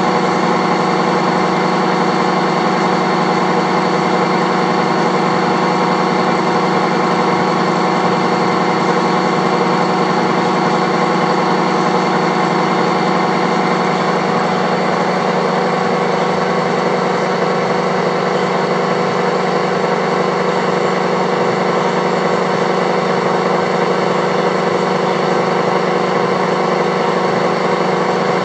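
Horizontal boring mill running steadily, its rotating head turning down the worn front journal of a gearbox input shaft so a sleeve can be pressed on. It is a steady machine hum with several steady tones.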